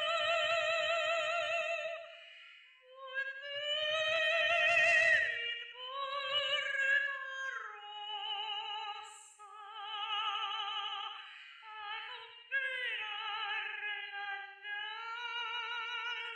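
Operatic soprano singing with a wide vibrato: a held high note, a short break about three seconds in, then a phrase of notes that settles lower.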